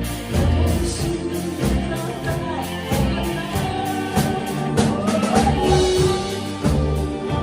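A band playing a ballad-style Korean pop song, a singer's voice over instruments with a drum kit keeping the beat.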